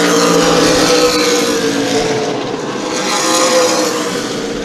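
Super late model stock cars' V8 engines running hard around the short track, one steady dense engine drone. It is loudest near the start and swells again about three seconds in as cars go by.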